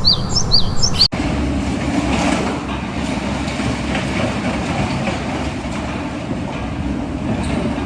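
A bird chirps three times in quick, short falling notes. After a sudden cut about a second in, a heavy machine's engine runs steadily with a low drone.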